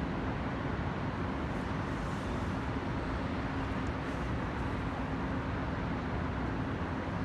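Steady street background noise: a low rumble with a constant hum, unchanging throughout.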